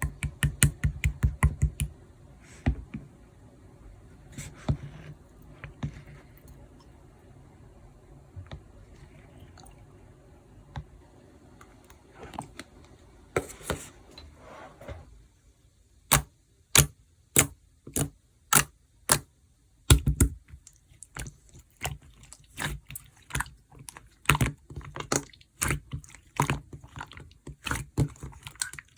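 Hands squishing and pressing slime, making sharp sticky pops and clicks: a quick run of pops at the start, scattered ones in the middle, then a steady series about every half second that turns into dense popping near the end.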